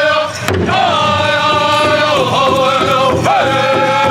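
Powwow drum group singing in high, chanting voices over a steady beat on a large drum. The sound dips briefly a fraction of a second in, then the song carries on.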